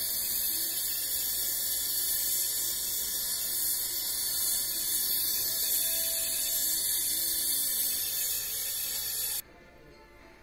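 Gas torch flame hissing steadily as it heats the copper header of a heat exchanger for soldering. The hiss cuts off suddenly about nine seconds in.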